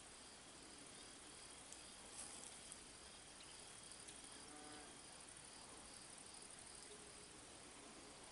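Faint crickets chirping in the evening quiet: a steady high trill with a slower pulsing chirp beneath it.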